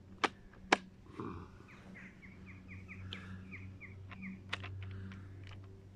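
Two sharp plastic clicks from handling a Titan electric chainsaw's switch and grip, with no motor starting. A bird sings a quick run of about ten descending chirps, a few more faint clicks follow.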